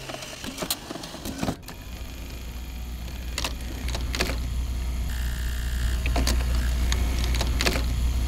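A machine mechanism running: a low hum that builds up from about two seconds in, with scattered sharp clicks and ticks throughout and a brief thin tone near the middle.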